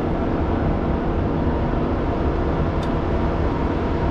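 Steady low rumble of a running engine close by. A faint small metal click about three seconds in comes from a cotter key being worked out of the slack adjuster's clevis pin.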